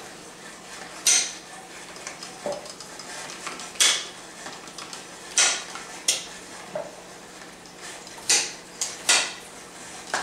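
Kitchen knife cutting on a cutting board: about ten sharp, irregularly spaced knocks, one every second or so, the loudest ones ringing briefly.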